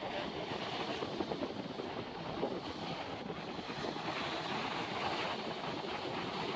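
Ocean surf breaking and washing against the rocks of a jetty, a steady rushing wash with wind buffeting the microphone.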